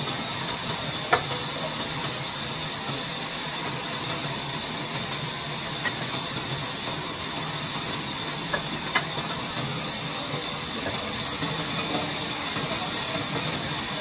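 Large wheel-type sawmill band saw running, a steady hiss as it saws through a log. A few sharp knocks stand out, one about a second in and two close together past the middle.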